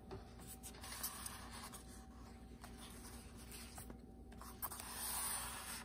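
Faint rustling and rubbing of paper and cardboard packaging as hands shift a cardboard sheet and paper instruction manual on a foam insert, a little louder near the end.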